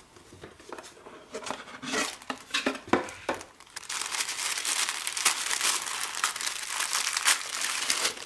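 Tissue paper crinkling inside a cardboard gift box as hands unfold it. A few separate light knocks and rustles of the box come first, then from about four seconds in the paper crackles steadily.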